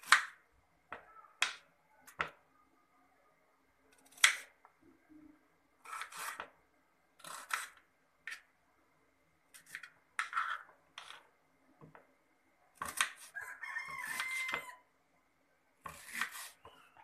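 Kitchen knife chopping a red onion on a plastic chopping board: separate sharp taps of the blade cutting through the onion onto the board, irregularly spaced with short pauses. About thirteen seconds in there is a longer sound with a steady pitch lasting over a second.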